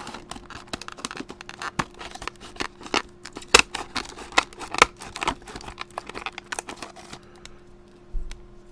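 Scissors cutting through a stiff plastic blister pack, with irregular snips and plastic crackling that stop about seven seconds in. A dull thump near the end.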